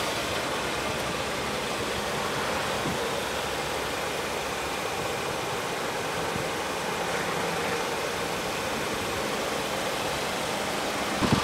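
Steady background noise, an even hiss with a low hum beneath it and no distinct events.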